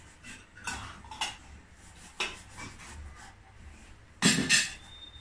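A spoon clinking a few times against a small glass jar, then the jar set down on the table with two loud knocks close together about four seconds in.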